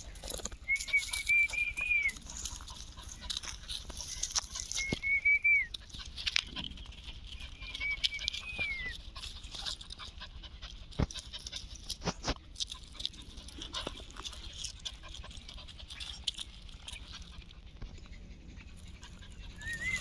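A small dog whining: thin, high whimpers about a second long that dip at the end, three in the first nine seconds and another starting at the very end. Under them, light rustling and scratching on dry ground.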